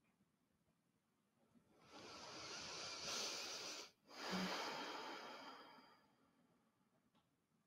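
A woman's slow, deep breath: an inhale of about two seconds, a sharp break, then a long exhale that fades away.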